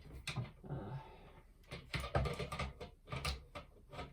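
Small plastic kit parts clicking and knocking against each other as they are handled and fitted together, with a brief scrape about a second in.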